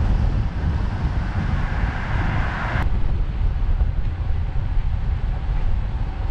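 Wind buffeting the microphone of a camera on a moving bicycle, a steady low rumble. A hiss rises over it and cuts off sharply about three seconds in.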